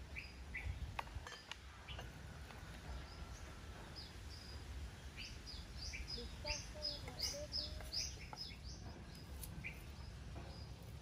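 Small birds chirping: a quick run of short, high, falling chirps, busiest in the middle, with scattered single calls before and after. A few light knife taps on a wooden cutting board.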